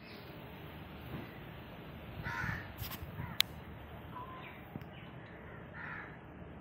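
A crow cawing, once about two seconds in and again near the end, over steady background noise, with a single sharp click midway.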